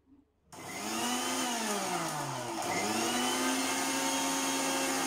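Preethi mixer grinder starting up about half a second in and running in its steel jar, grinding ginger, lemon juice and mint leaves. Its pitch drops and picks back up about two seconds in, as if switched off and on again in a pulse, then holds steady.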